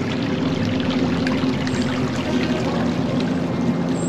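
Shallow creek water trickling steadily over a bed of cobbles and stones.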